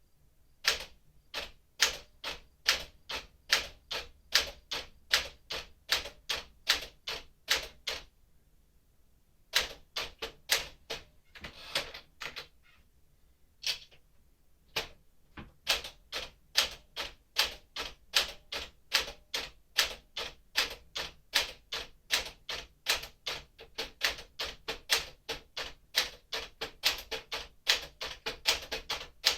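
1958 Smith-Corona Clipper manual typewriter typing the number row: sharp key strikes at about two a second, with a couple of short pauses.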